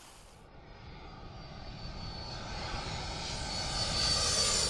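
Airplane engine noise, a steady roar with a high whine, growing gradually louder.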